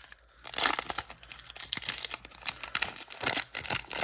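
Crinkling and tearing of a hockey card pack's wrapper being opened, with rustling of cards being handled.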